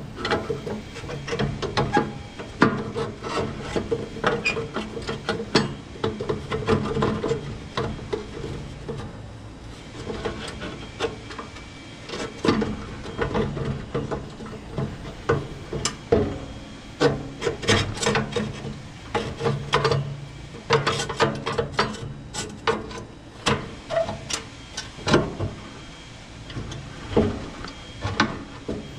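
Metal parts scraping, rubbing and knocking together inside a gas grill's firebox as the old burner tubes are worked loose and pulled out, with many irregular knocks and clanks throughout.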